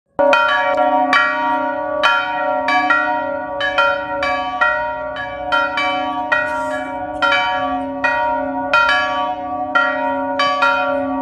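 Orthodox church bells being rung in a quick, uneven run of strikes, about two to three a second, each ringing on over a steady low hum.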